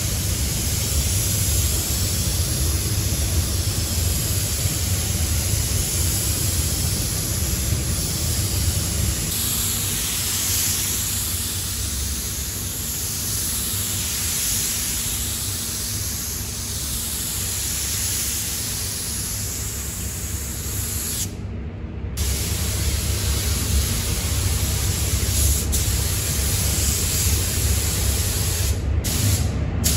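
Gravity-feed spray gun hissing steadily as it sprays primer onto a truck cab, swelling and fading with each pass, over a steady low rumble. The hiss cuts out for under a second about two-thirds of the way through.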